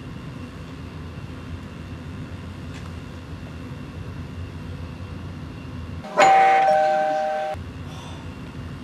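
Two-tone ding-dong doorbell chime rings once about six seconds in, a higher note then a lower one, fading and cutting off after about a second and a half, over a steady low room hum.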